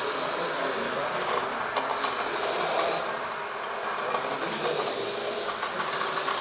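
Radio-controlled scale model excavator at work: a steady mechanical whir with rapid rattling clicks, and a brief hiss about two seconds in.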